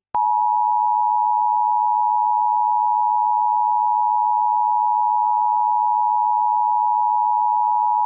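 Emergency Alert System attention signal: the steady two-tone alarm of 853 and 960 Hz sounding together. It starts abruptly and cuts off sharply about eight seconds later, announcing a Required Monthly Test alert.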